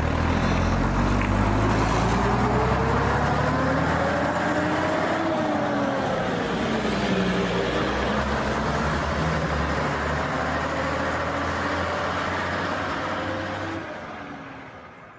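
Bus engine running under load, with a whine that climbs for several seconds and then drops back, before the sound fades out at the end.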